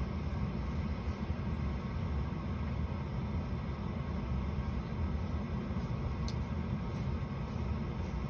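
Steady low rumbling background noise with no distinct events, and one faint click about six seconds in.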